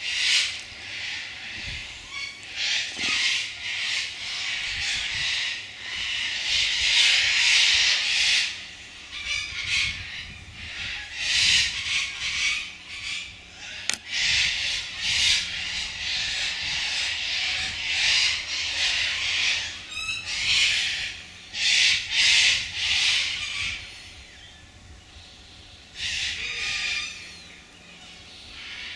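Sulphur-crested cockatoos screeching: a string of harsh screeches, some short and some a second or two long, following one another, with a lull a few seconds before the end.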